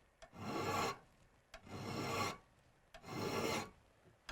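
Hand file rasping across the steel pick of an ice climbing tool, sharpening its bevel: three even strokes about a second and a half apart, each pushed in one direction with the file lifted in between.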